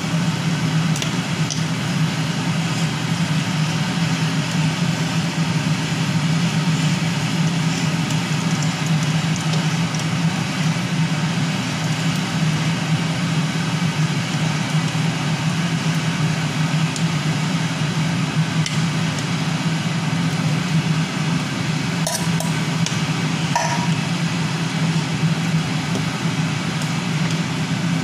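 A loud, steady mechanical hum with an even rushing hiss over it. A few light clinks of a utensil against the pot come near the end.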